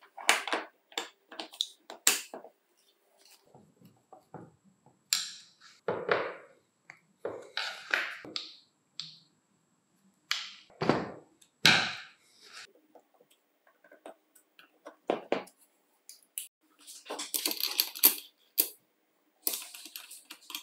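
Hands reassembling a Hitachi G18DSL cordless angle grinder: irregular clicks, taps and knocks of the aluminium gear head, screws and screwdriver, with a few heavier knocks about halfway. Near the end comes a scraping, rattling stretch as the wheel guard and flange are set on the spindle.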